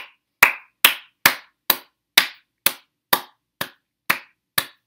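One person clapping his hands, eleven even claps at about two a second, stopping just before the end.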